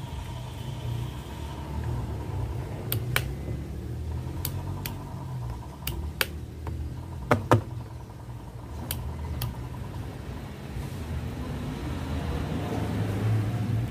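A low steady rumble runs throughout. Over it come about ten small, sharp clicks as a multimeter test lead and wires are handled. The loudest two clicks come close together a little past halfway.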